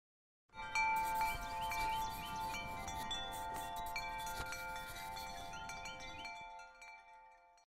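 Chimes ringing: many bright metallic tones struck over one another in a shimmering cluster, starting about half a second in and dying away near the end.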